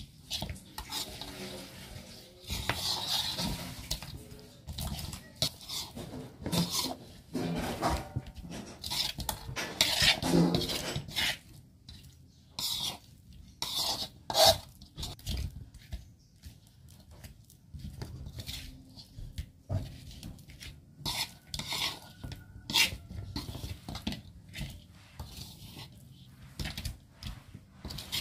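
Pieces of grilled chicken being handled and set down on a plastic plate, with more taken from a pan: irregular clicks, knocks and light clatter of food and dishes.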